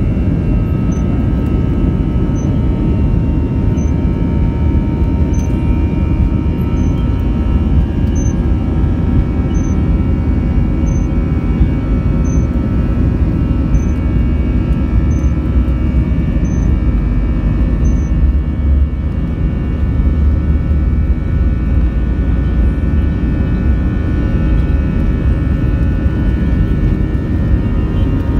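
Airliner cabin noise as the plane rolls along a wet runway: a steady jet-engine hum with a few constant tones over a loud low rumble.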